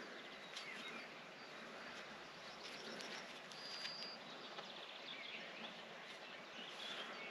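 Faint open-air ambience with a bird giving a short high chirp about halfway through.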